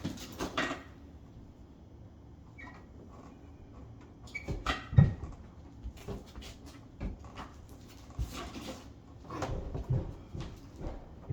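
Scattered knocks, clunks and scrapes of hands working a tight-fitting appliance and its hoses in the space under a kitchen counter, with the loudest thump about five seconds in.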